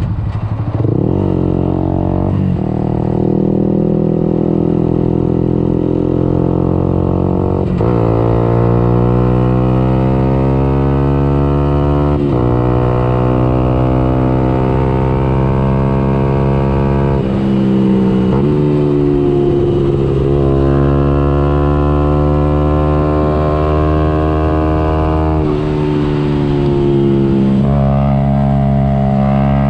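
Yamaha YZF-R 125's single-cylinder four-stroke engine, barking through a Radical Racing exhaust with the dB killer removed, pulling at full throttle. The revs climb in each gear and drop abruptly at a gear change every few seconds.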